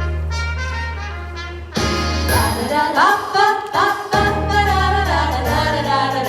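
Christmas song intro: bass and brass with voices singing harmonies that come in about two seconds in.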